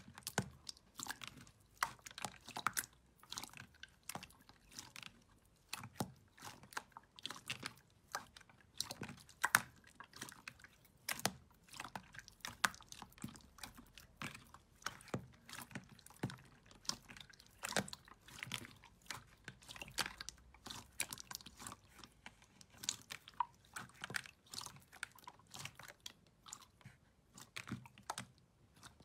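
Hands pressing and kneading glossy clear slime in a plastic tub: a faint, irregular stream of small wet clicks, pops and crackles, several a second.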